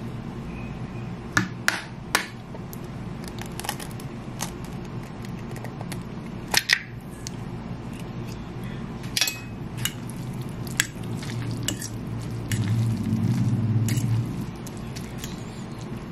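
Metal fork clinking and scraping on a ceramic plate while mixing pancit canton noodles with a raw egg, with sharp clinks scattered irregularly through. A steady low hum runs underneath and grows louder for a second or two near the end.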